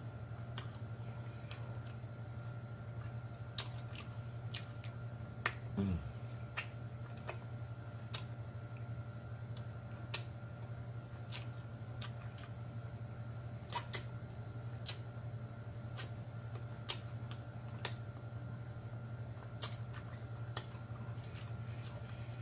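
Close-miked mouth sounds of eating sauced chicken wings: scattered wet smacks and clicks over a steady low hum. About six seconds in, a short vocal sound falls in pitch.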